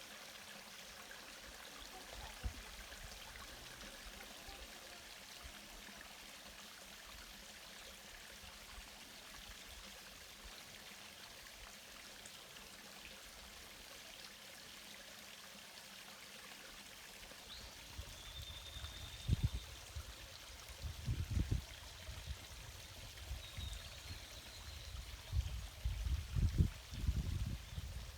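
Mountain stream flowing and splashing steadily over rocks. From about two-thirds of the way in, low rumbling gusts come and go over it.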